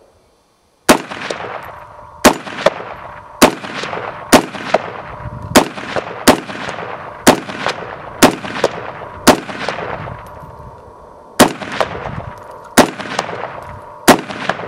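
Century Arms R1A1 Sporter, a semi-automatic gas-operated FN FAL-pattern rifle in .308, firing about a dozen single shots at roughly one a second, with a longer pause near the middle, each shot trailing off in echo. The rifle cycles every round without a stoppage.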